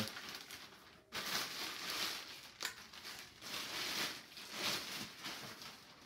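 Clear plastic bag crinkling and rustling in uneven bursts as a rifle is pulled out of it.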